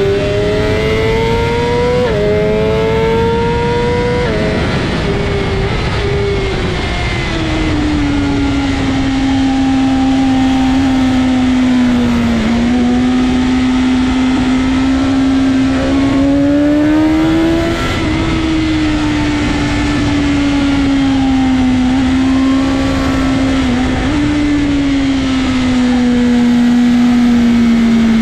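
BMW M 1000 RR's inline-four engine at full song on track: it climbs in pitch with two quick upshifts in the first few seconds, then drops as the bike slows for a corner and holds a steady note through long bends, with another rise and upshift around the middle. Constant wind rush over the onboard microphone.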